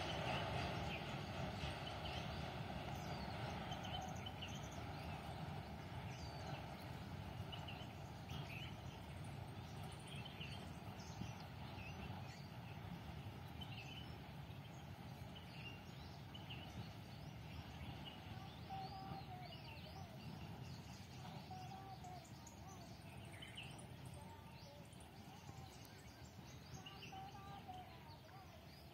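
A distant low rumble slowly dying away, with small birds chirping now and then over it and a warbling bird call in the second half.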